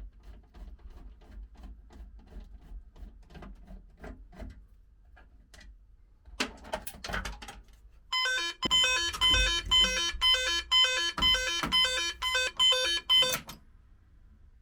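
An intruder alarm sounder gives a loud, pulsing electronic tone, about two beeps a second, for about five seconds before it cuts off sharply. Before it come faint regular ticks and a few sharp clicks.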